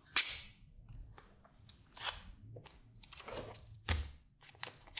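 Blue masking tape being pulled off its roll and torn into short strips by hand: a series of several short, sharp rips and snaps, the loudest just after the start and about four seconds in.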